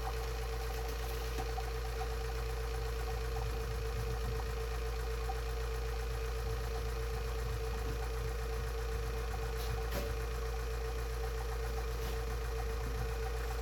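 Robinair 15600 two-stage electric vacuum pump running steadily, a constant motor hum, pulling vacuum on a connected test gauge.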